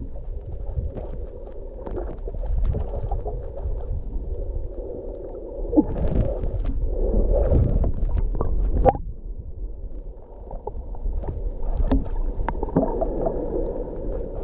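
Muffled underwater sound of shallow sea water, heard from a submerged camera: a low rumble and sloshing with scattered clicks and knocks, louder in the middle and ending in a sharp knock about nine seconds in.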